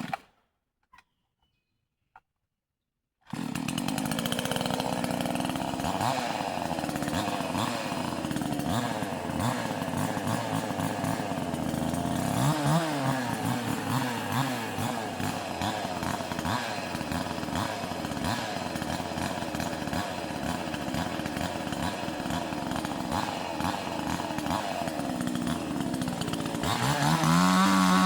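Vevor chainsaw running and cutting into a dead tree, starting abruptly about three seconds in after near silence. Its pitch wavers up and down as it works, and it gets louder and higher near the end.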